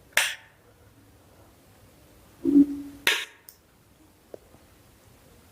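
Plastic push-pins of a stock Intel CPU cooler clicking into the motherboard's mounting holes: two sharp clicks about three seconds apart, with a faint tick later.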